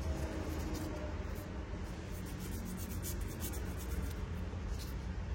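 Polishing pad rubbed back and forth over the metal case of a Zippo lighter, a dry scratchy rubbing in repeated strokes, buffing the case to a shine.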